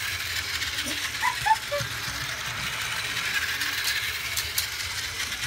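Toy Shinkansen train running around a circle of blue plastic track: a steady mechanical whirring and rattling from its small motor, gears and wheels on the rails.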